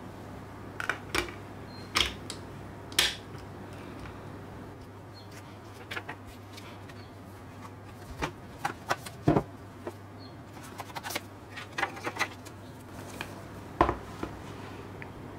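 Handling noise from a Blu-ray disc and its cardboard packaging: a scattered series of light clicks, taps and knocks as the disc and box are picked up and set down, over a faint steady hum.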